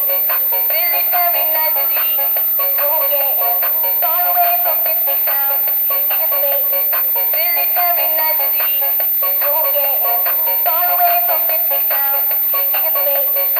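Upbeat electronic background music with a steady beat and a bright synthesized melody.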